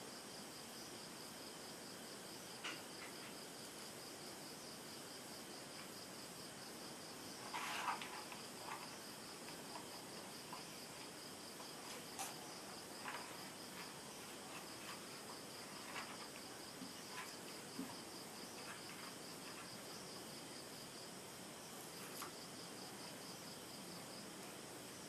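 A cricket chirping steadily in a fast pulsed trill, with scattered faint clicks of small objects being handled and a brief louder rustle about eight seconds in.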